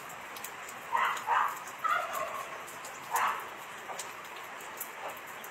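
Four short pitched animal calls, starting about a second in and spread over about two and a half seconds.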